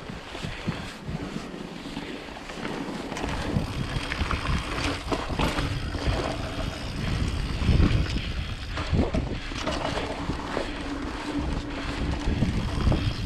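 Downhill mountain bike descending at speed: wind rushing over the microphone, with tyres rumbling over dirt and the bike rattling, and several hard knocks from landings and rough ground. The rumble gets louder about three seconds in.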